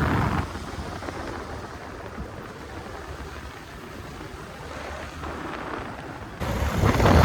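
Wind buffeting the microphone, a steady rush with a louder gust near the end lasting about a second.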